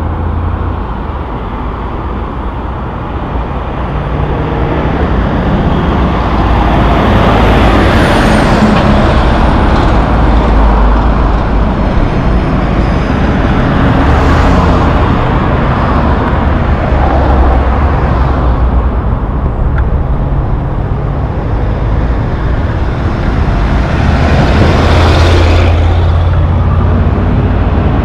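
Road traffic passing close by: heavy diesel trucks and cars drive past, engines running under a steady hiss of tyres on pavement, getting louder after about five seconds. Two short, sharp hisses stand out, one about halfway through and one near the end.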